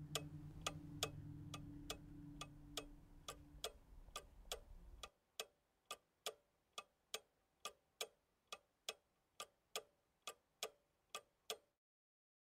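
Faint, steady ticking, a little over two ticks a second, over a low room hum. The hum cuts out about five seconds in, the ticking carries on alone and stops shortly before the end.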